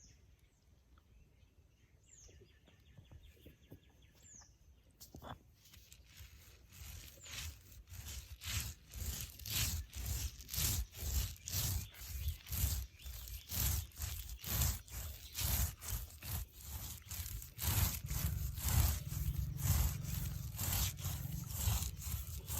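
Soaked rice being ground by hand on a traditional stone grinder: stone rubbing on stone in a steady rhythm of about two strokes a second. It starts faintly about six seconds in and grows louder.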